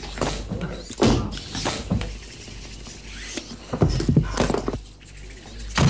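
A series of irregular knocks and clatters, about seven sharp strikes spread unevenly across a few seconds.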